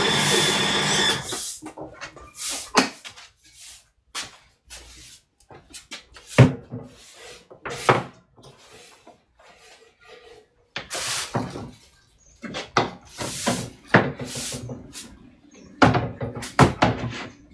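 A steady hum stops about a second in, followed by scattered knocks, clicks and short clatters of objects being handled, some loud and sharp, with quieter pauses between them.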